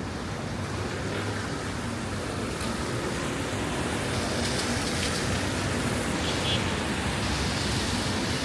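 Heavy rain falling steadily, a dense even hiss that grows a little louder about four seconds in.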